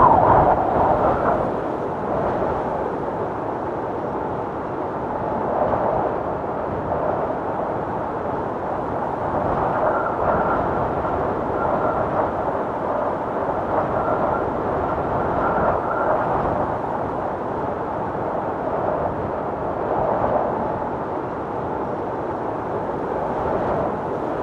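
Strong wind blowing, a steady rushing noise that swells and eases, with a faint thin whine near the middle.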